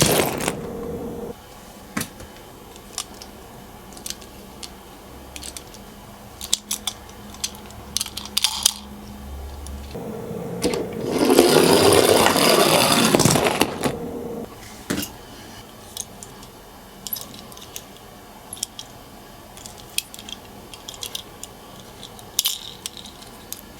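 Small toy minicars being handled, with scattered light clicks and clatter of hard plastic and metal parts. About halfway through comes a louder rush of noise lasting about two seconds.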